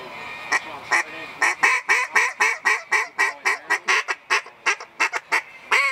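JJ Lares Hybrid duck call blown in a string of quacks: two single notes, then a fast run of about five quacks a second that gets shorter and quieter near the end.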